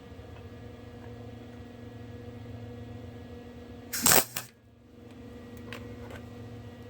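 A steady low hum with one short, loud crackling burst about four seconds in: a stick-welding electrode striking a brief arc for a tack weld.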